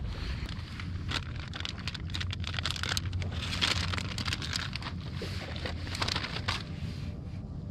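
Clear plastic zip-top bag crinkling and rustling as a hand reaches into it: a run of sharp crackles, loudest around the middle and again near the end. A steady low wind rumble runs underneath.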